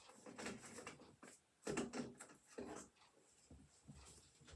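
Quiet handling sounds: a few soft knocks and rustles as small objects are picked up, moved and set down, with two slightly louder knocks a little under two seconds in and again after about two and a half seconds.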